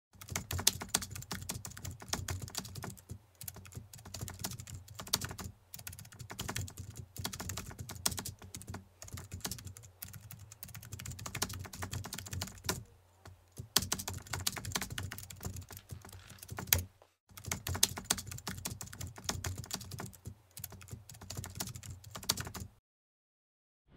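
Rapid keyboard typing: quick runs of clicks with short pauses between bursts, stopping abruptly about a second before the end.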